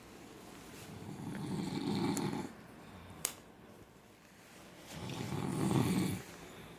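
A man snoring: two long, rough snores about four seconds apart, each swelling over a second or more and then stopping. A single sharp click falls between them.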